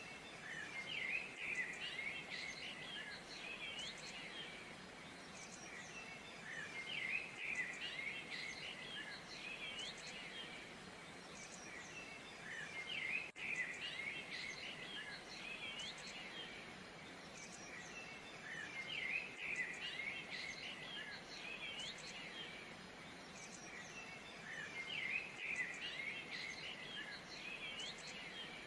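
Songbirds chirping and trilling in clusters that come back every few seconds, over a steady background hiss.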